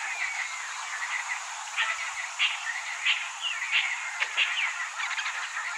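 Frogs calling in a chorus of short, high chirps and clicks, several a second, with a few falling notes, over a steady high hiss.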